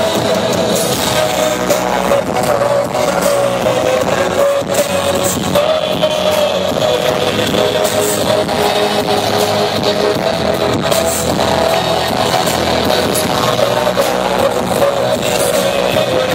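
Live band music from a concert stage, piano and a male voice singing over long held notes, loud and unbroken, heard from among the audience.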